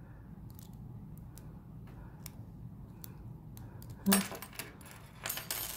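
Faint clicking of lock picks working the pins inside a cheap Brinks pin-tumbler padlock, then a sharp metallic clatter about four seconds in and another rattle near the end as the padlock is worked open.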